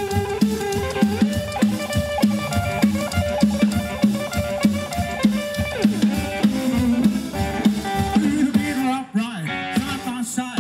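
Live rock and roll trio playing an instrumental stretch: upright double bass, electric guitar and drum kit, with a steady driving beat and the guitar playing a moving lead line.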